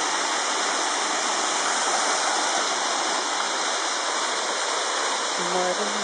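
Steady rush of a waterfall pouring over rock.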